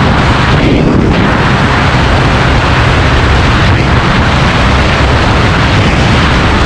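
Loud, steady wind rush buffeting the microphone, over the engine of a TVS Ntorq 125 scooter held near its top speed at about 96–97 km/h.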